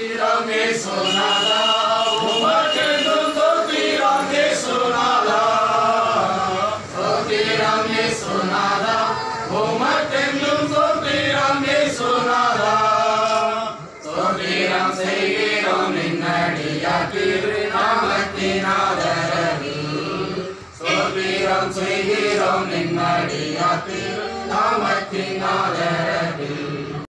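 Voices singing a slow, chant-like song in long phrases, with short breaks between them about every seven seconds.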